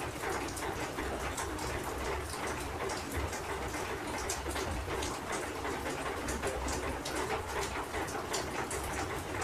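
Steady rain falling outside, heard from inside a room, a dense patter of drops over a constant wash of noise.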